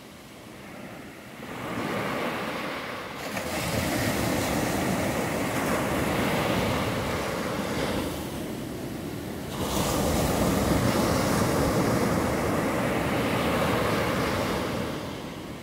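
Small waves breaking on a sandy beach and washing up the shore. The surf swells and eases in turn, with a louder breaker about three seconds in and another just before ten seconds.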